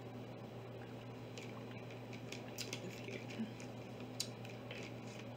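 Scattered faint clicks and ticks of small objects being handled, starting about a second and a half in, over a low steady hum.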